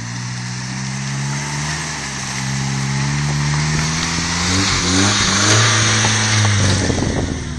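Mazda Bravo 4WD ute's engine revving under load as it drives up out of a creek crossing and past close by, the engine note climbing in pitch and getting louder, loudest about five and a half seconds in, with a rush of tyre noise as it passes.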